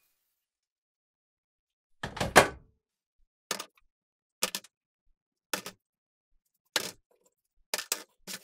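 Rusty metal parts of a vintage bike pump dropped one at a time into an empty plastic tub. The first clatter, about two seconds in, is the loudest. About six shorter clinks and knocks follow, roughly a second apart.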